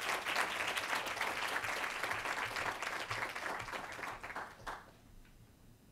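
Audience applauding, the clapping dying away about three-quarters of the way through.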